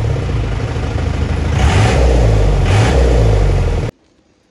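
Mahindra Major jeep's four-cylinder diesel engine running, its fuel injection pump freshly serviced, revved up twice in the middle. The sound cuts off abruptly near the end.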